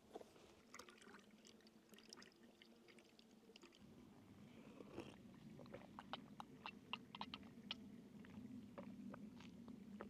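Faint chewing and crunching of someone eating, heard as a scatter of small sharp clicks over a low steady hum.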